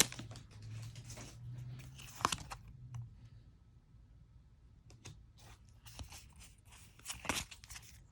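Pokémon card booster pack being handled: faint crinkling of the foil wrapper and light rustles and taps of cards, in short scattered bits, the clearest about two seconds in and again near the end.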